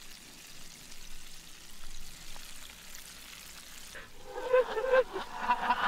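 Hot oil sizzling faintly in a pot as a whole chicken deep-fries. About four seconds in, men's voices and laughter come in, played backwards.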